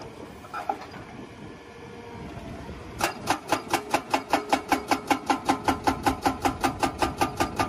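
Excavator's hydraulic breaker hammering rock in a rapid, even rhythm of about five blows a second. It starts about three seconds in, over the excavator's steady engine noise.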